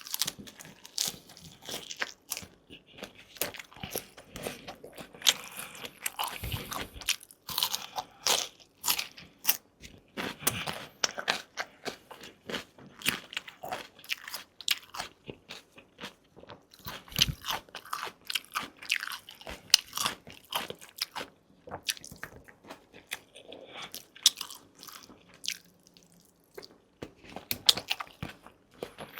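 Close-miked eating: crunchy bites and chewing in a dense run of sharp clicks, with a short lull a few seconds before the end.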